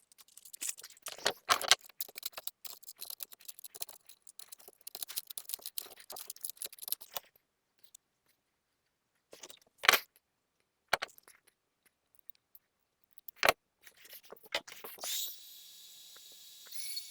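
Hand handling noise as cables and fittings are worked behind a panel: a dense run of small clicks and rustles, then a few single sharp clicks. Near the end a steady hiss with a faint high whine sets in.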